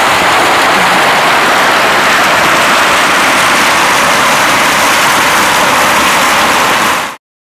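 Fountain jets splashing steadily into a pool, an even rushing of falling water that cuts off abruptly near the end.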